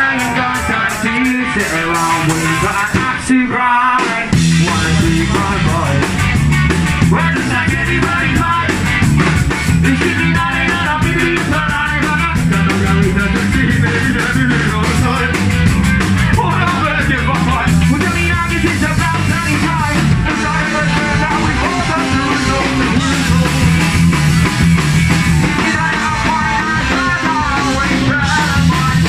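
Ska-punk band playing live and loud, with singing, guitar, drums and horns. A brief break comes about three and a half seconds in, then the full band crashes back in with heavy bass and drums.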